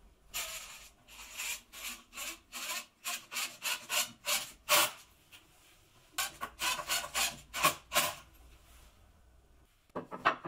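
Wood screw being driven into a pine block, making short noisy strokes about two to three a second in two runs with a pause between. Near the end, a couple of sharp knocks of wood on the bench.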